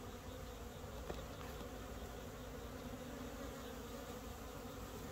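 Honeybees humming steadily in an open hive box. The colony is docile, not agitated.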